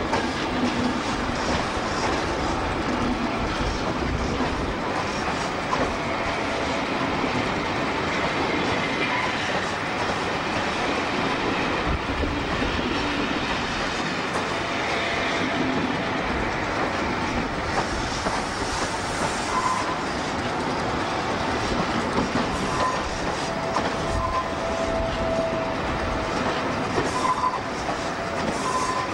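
InterCity Mark 3 passenger coaches rolling past close by, a steady rumble with the clickety-clack of wheels over rail joints. Faint short wheel squeals sound a few times in the second half.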